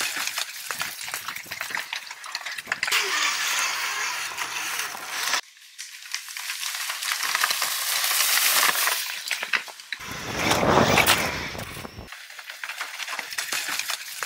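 Loose gravel, stones and dirt crunching and scattering under the wheels of a Unitree B2-W wheeled robot dog, in a few separate stretches that break off suddenly. A louder, deeper rush comes a little after ten seconds in.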